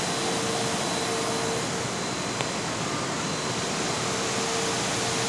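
Steady rush of air with a faint hum from large rooftop condenser fans running.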